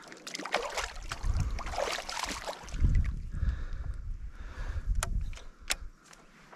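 Water sloshing and splashing around a just-landed fish, with an uneven low rumble on the microphone and two sharp clicks about five seconds in.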